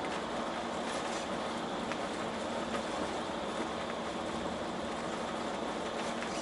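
Steady engine and tyre noise inside a cargo truck's cab cruising at highway speed, an even rumble with a faint steady hum.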